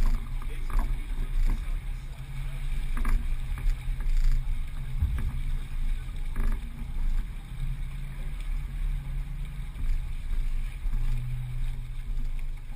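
Low, steady rumble aboard a sailboat underway, with a few faint knocks about one, three and six seconds in.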